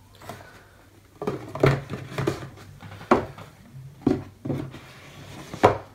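Empty cardboard product boxes being handled and set down on a desk: a string of light knocks and scuffs, about seven over the few seconds, with a faint low hum underneath.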